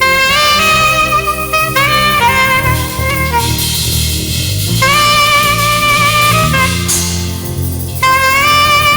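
Saxophone playing a slow gospel worship melody in long held notes with vibrato, over a band accompaniment with a steady bass line underneath.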